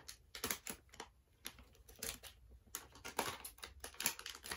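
Plastic blind-bag packaging crinkling and rustling as it is handled and cut open with scissors, in irregular short crackles.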